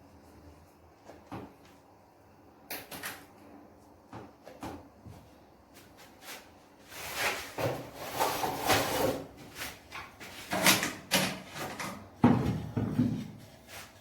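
A run of irregular knocks and clatters, as of hard objects being handled and set down, sparse at first and busiest in the second half.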